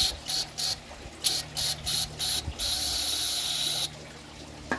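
Aerosol carburetor cleaner sprayed through a thin extension straw into a small-engine carburetor's pilot (idle) jet passage to clear a blockage that makes the engine surge: a quick run of short hissing squirts, then one longer spray of over a second that stops about four seconds in.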